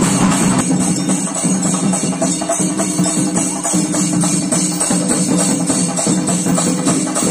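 Chenda melam: a group of Kerala chenda drums beaten with sticks in a fast, dense, unbroken rhythm, with metallic cymbal clashes ringing along.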